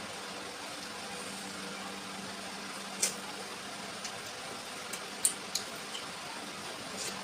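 Eating sounds: a few short, sharp wet clicks of chewing and lip-smacking, the loudest about five seconds in, over a steady background hum.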